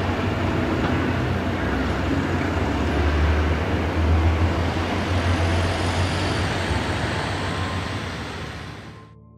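Steady low engine rumble with road vehicles passing, fading out over the last second or so.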